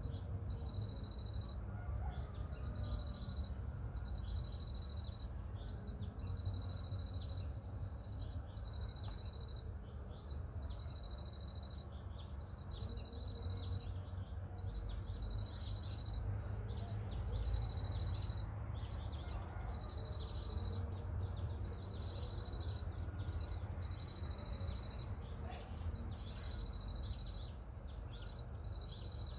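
Rural pond-side ambience: an insect's high, even-pitched trill repeats about every two seconds, each trill lasting about a second. Short bird chirps are scattered over a low steady rumble.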